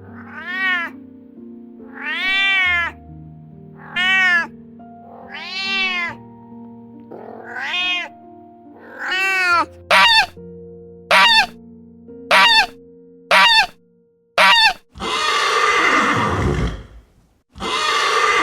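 A cat meowing about six times, each call rising then falling in pitch, over background music. Then five sharp clicks, and near the end two longer noisy bursts that drop in pitch.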